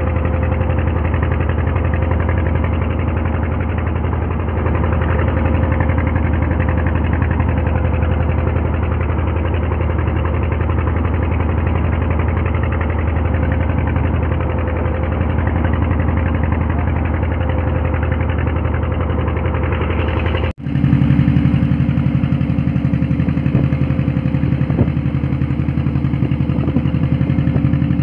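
Fishing boat's diesel engine running steadily under way. About two-thirds of the way in there is a brief dropout, and after it the engine note changes character.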